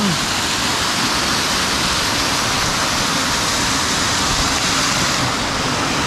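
Small waterfall, water falling in a steady, even rush.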